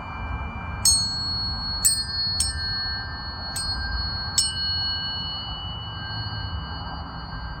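Tuning forks struck five times in about four seconds. Each strike leaves a high, pure ringing tone, and the tones overlap and sustain.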